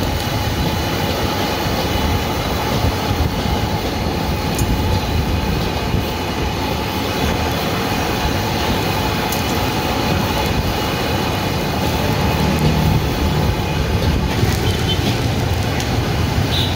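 Steady, loud rushing of a gas wok burner at full flame, with seafood sauce boiling hard in the wok above it.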